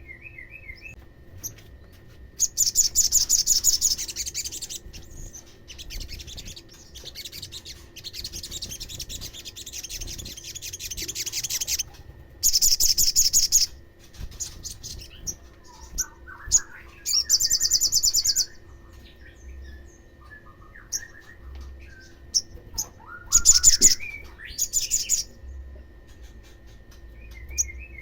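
Sunbird song: rapid, high, buzzy trills in loud bursts a second or several long, with quieter scattered chirps between them.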